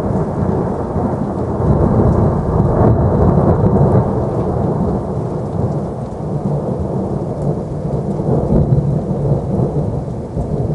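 Thunderstorm: long low rolling thunder over steady rain, the rumble swelling a couple of seconds in and easing back later.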